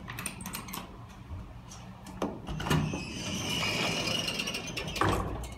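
A.B.See traction elevator answering a call at the landing, with a steady low hum throughout. A click comes about two seconds in, then a scraping, rattling sound for about two seconds as the hoistway door opens onto the car's collapsible gate, and a knock near the end.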